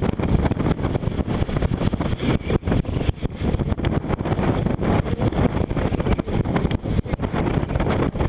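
Force 6 wind buffeting the microphone aboard a sailing boat: a loud, steady low rumble broken by rapid, irregular crackles and thumps from gusts hitting the mic.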